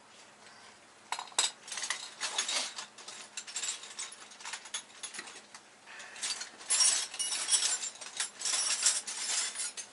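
Ratchet wrench clicking and metal socket extension clinking as a bolt is worked on an engine mount. The clicks are sparse at first and come thick and fast in the last few seconds.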